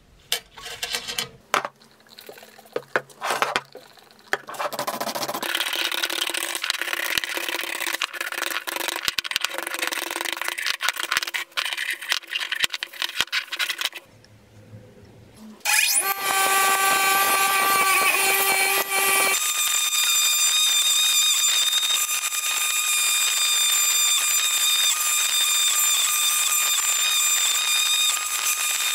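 Clicks and clatter of small metal parts being handled, then several seconds of rough scraping noise. About halfway through, a bench grinder/buffer starts up with a slightly rising whine. It then runs steadily with several high whining tones while the vise's threaded lead screw is held against the spinning wheel.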